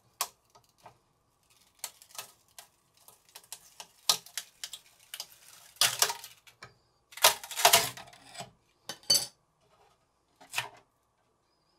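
Clicks, scrapes and crackling as a large 3D print is worked loose from an Ender 3 Pro's removable build sheet and pried off the bed, with the loudest crackling about six seconds in and again from about seven to eight and a half seconds in.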